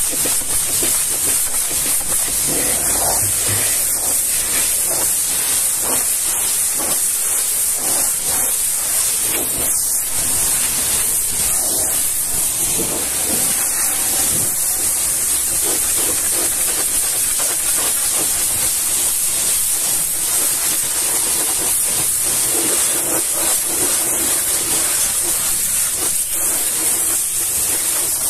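High-pressure washer jet spraying a truck's side panels and front wheel: a loud, steady hiss of water hitting metal, rubber and wet ground.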